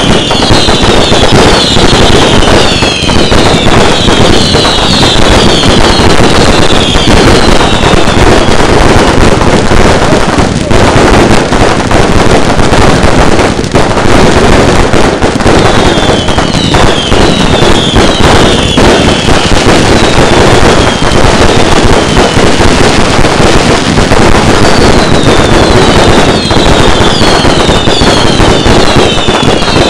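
Firework barrage cakes firing continuously: a dense, loud run of bangs and crackling, with spells of many short falling whistles from whistling effects.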